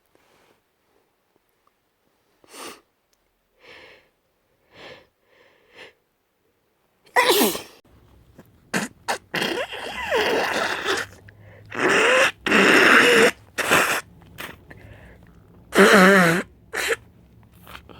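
A person with a head cold sniffling softly a few times, then, from about seven seconds in, blowing their congested nose hard in several long, noisy blasts, some with a wavering honk.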